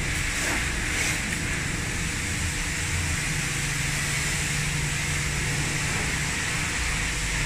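Steady low mechanical hum with an even hiss over it, from a motor or engine running nearby.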